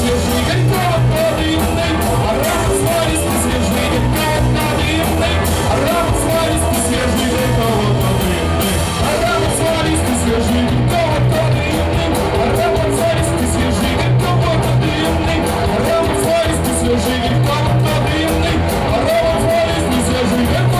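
A live rock band playing: electric guitar, bass and drums, with a voice singing over them.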